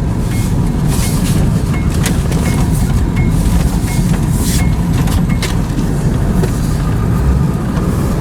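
Steady low road and engine rumble of a moving vehicle, with a few knocks and a faint regular tick about one and a half times a second.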